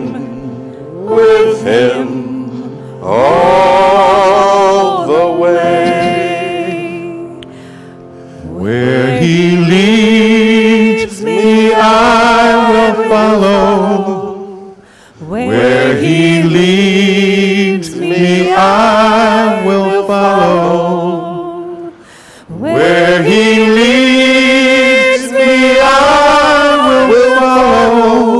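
Small church choir singing a hymn in long, held phrases, with short pauses for breath between lines.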